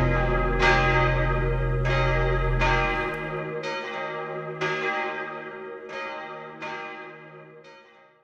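A bell struck about once a second, each stroke ringing on and dying away, over a low sustained drone that stops about three seconds in; the whole sound fades out near the end.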